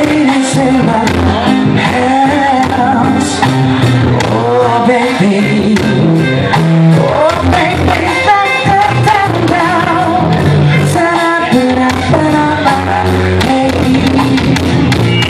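Live blues-rock band playing an instrumental passage: an amplified harmonica, cupped against the microphone, wails with bending notes over electric guitar, keyboard, bass and drums.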